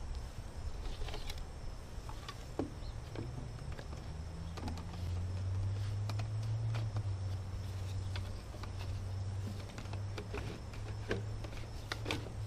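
Scattered light clicks and knocks of PVC drain pipe and fittings being handled and fitted together, over a low steady hum.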